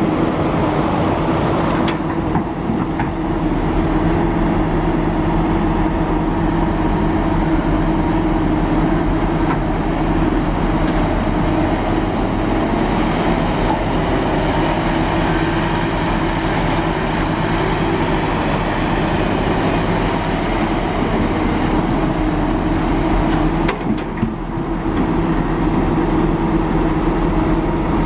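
Diesel engine of a Kobelco SK350 excavator running steadily under working load, a constant loud drone. The level dips briefly about two seconds in and again near the end.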